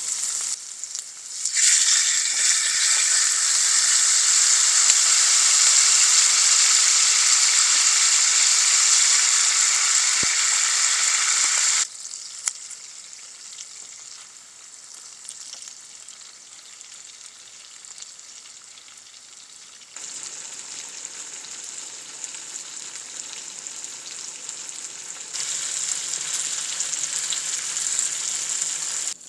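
Pork belly frying in its fat on a griddle pan, with kimchi frying among the slices: a steady, crackling sizzle. It is loud for the first ten seconds or so, drops suddenly, then comes back stronger in two steps toward the end.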